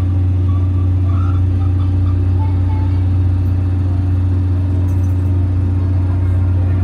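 Steady low drone of a diesel engine, heard from inside a locomotive-hauled passenger coach as the train departs.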